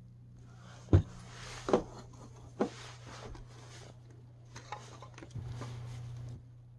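Hard parts being handled, with three sharp knocks in the first few seconds and lighter rubbing and clicking between them. Near the end a steady low hum runs for about a second and cuts off suddenly.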